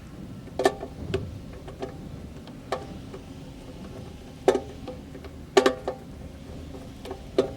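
Sharp metallic clicks and clinks at irregular intervals, each with a brief ringing tone: a screwdriver working the lock's mounting screws into the metal case.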